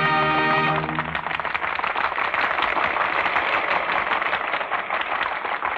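An orchestra's held final chord ends about a second in, and a studio audience takes up steady applause, on an old radio broadcast recording with little treble.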